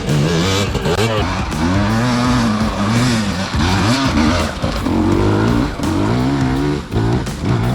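KTM 250 two-stroke dirt bike engine revving up and down repeatedly under load as the throttle is worked on a climb.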